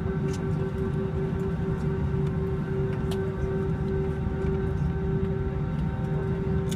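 Airbus A321 cabin noise heard from a window seat over the wing while taxiing: the jet engines whine steadily at idle, one constant tone over a low rumble.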